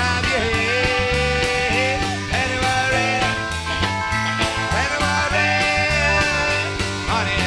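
Live country-rock band playing an instrumental break: bass and drums with a steady cymbal beat under a guitar lead that bends and slides between notes.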